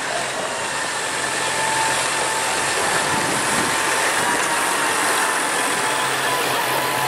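Massey Ferguson 7614 tractor's six-cylinder diesel engine running as it drives past pulling a passenger trailer, getting a little louder in the first couple of seconds as it comes near.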